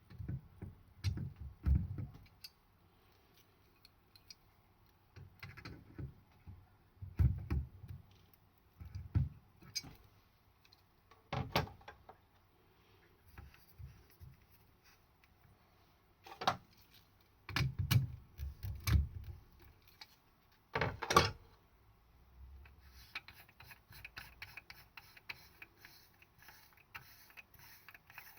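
Scattered clicks, clinks and low knocks of tools and metal faucet parts being handled and worked during a basin faucet repair. A patchy hiss runs through the last few seconds.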